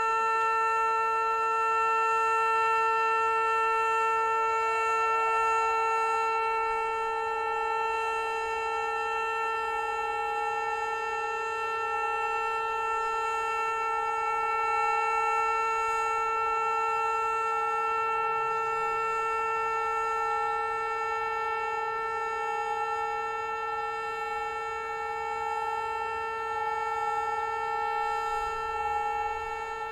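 Hörmann HLS 273 pneumatic high-performance civil-defence siren, driven by compressed air, sounding one long steady tone that holds its pitch without rising or falling. This is the German all-clear (Entwarnung) signal.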